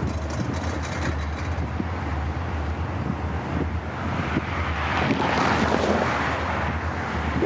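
Pair of EMD SD40-2 diesel locomotives, each with a 16-cylinder two-stroke engine, running as they approach pulling a freight train: a steady low engine drone, with a broad rushing noise building about four seconds in as the train draws closer.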